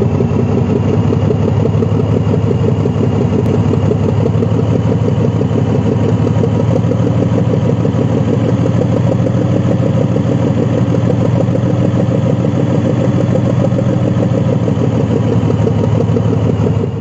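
Diesel locomotive engine idling steadily at an even pitch, fading in at the start and out at the end.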